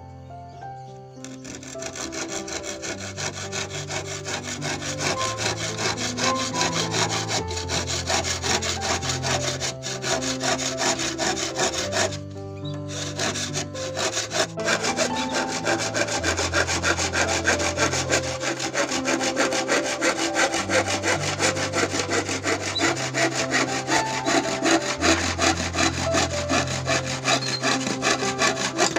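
Hand saw cutting across an old, dry wooden plank in steady back-and-forth strokes. It starts about a second in and pauses briefly near the middle.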